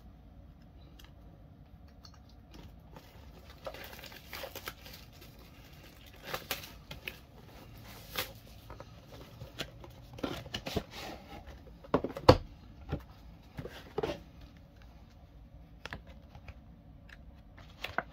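Plastic shrink-wrap being torn and crinkled off a cardboard trading-card box, mixed with the box being handled and opened. A sharp knock about twelve seconds in is the loudest sound.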